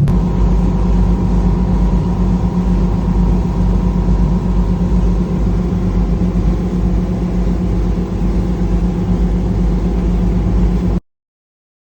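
An engine running steadily at an even speed, a low hum with a rushing noise over it, which cuts off abruptly near the end.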